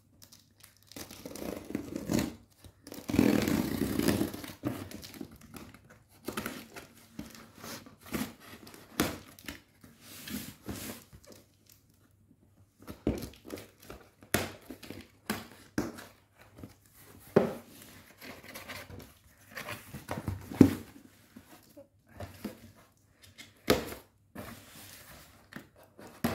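A cardboard shipping box being opened by hand: scissors cutting along the packing tape, tape ripping, and cardboard flaps being pulled and torn open, in irregular rasping stretches with a few sharp clicks. The longest, loudest tearing comes a few seconds in.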